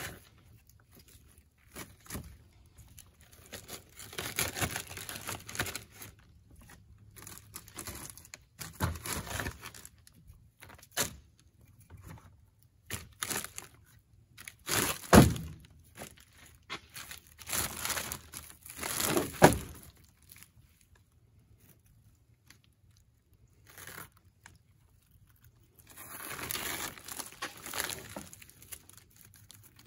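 Pieces of split peach wood knocking together as they are packed into a mesh firewood bag, with rustling of the bag's netting and plastic liner. Two sharp knocks a few seconds apart around the middle are the loudest. Near the end comes a longer rustle as the bag's drawstring is pulled shut.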